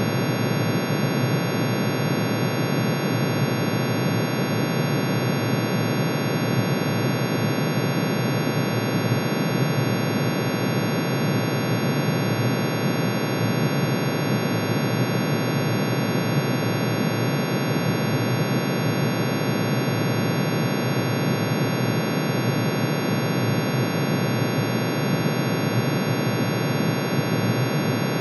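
Synthesized drone made of many sine-wave tones summed together, the emission lines of iron's atomic spectrum shifted down into hearing range. It sounds like a dense, unchanging hum of many pitches at once, noisy and beating in its lower range.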